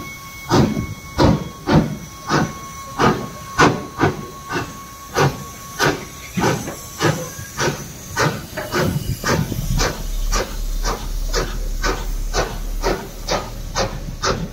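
Taff Vale Railway No. 85, an 0-6-2 steam tank locomotive, pulling away, its exhaust chuffing in sharp regular beats that quicken from about two a second to about three a second as it gathers speed. A thin steady hiss of steam sits under the beats in the first half.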